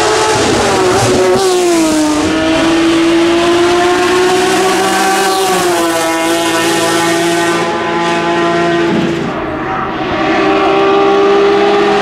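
BMW S54 3.2-litre straight-six of an E36 M3 race car running hard at high revs. Its pitch falls about a second in, then holds high with a small step down around six seconds. Near the end it briefly drops in loudness before climbing again.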